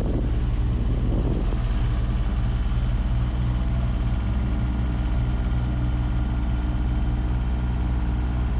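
A car engine running steadily at one low pitch, with some rough noise dying away in the first second or so.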